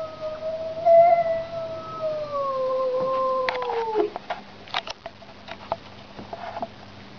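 Domestic cat yowling: one long, drawn-out call that slowly sinks in pitch and breaks off about four seconds in, followed by a few faint clicks. It is the territorial yowl a cat makes when facing off with another cat.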